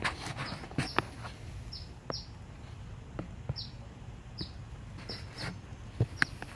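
A small bird chirping, with short high chirps coming about once or twice a second, over scattered sharp clicks and knocks. The loudest knocks come about a second in and near the end.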